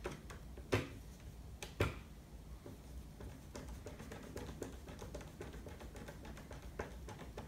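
A screwdriver tightening a screw in a plastic belt clamp: a few sharp clicks in the first two seconds, then faint small ticks and taps.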